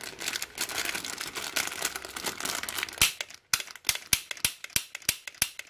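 Clear plastic bag crinkling around a plastic toy BB pistol. From about three seconds in, the pistol clicks sharply and regularly, about three times a second, as its trigger is worked over and over while it feeds its 6mm BBs badly.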